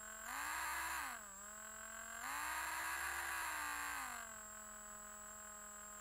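Electric drill motor running with a steady whine, sped up twice by the trigger. Pitch and loudness rise briefly about a third of a second in and fall back near one second, then rise again around two seconds, hold, and settle back near four seconds. A thin high whine runs steadily above the motor.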